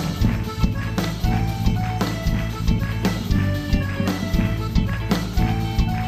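Live band playing a sertão-style instrumental, with a zabumba bass drum struck about twice a second under held, changing notes from other instruments.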